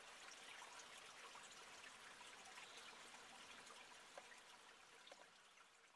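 Faint trickling of a small woodland stream, with a few tiny drips, fading out about four and a half seconds in.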